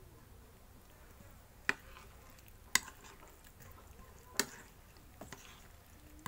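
A steel spoon stirring oily, masala-coated green chillies in a bowl to mix green chilli pickle. Three sharp clinks of the spoon against the bowl come about a second apart, followed by a couple of lighter taps.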